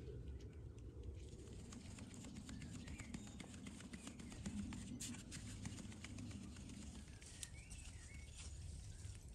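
Flour being sifted through a wooden-rimmed sieve shaken by hand over an enamel basin: a soft patter of light taps and rustling.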